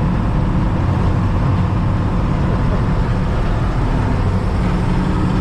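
John Deere 6600 combine running steadily during wheat harvest, a low, even engine drone with machinery noise over it.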